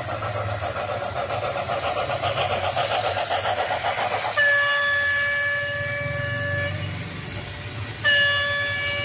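Battery-powered toy train's electronic sound effects: a fast pulsing warble, then a steady electronic horn tone held about two and a half seconds, sounding about four seconds in and again near the end. Under it runs the low hum of the small motor and wheels on the plastic track.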